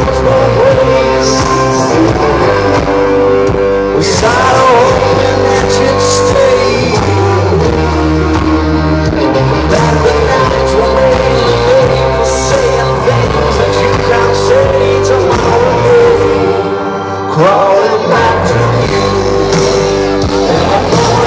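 Rock band playing live through an arena PA, heard loud from within the crowd: electric guitar, bass and drums with singing. The bass and drums drop out briefly near the end, then come back in.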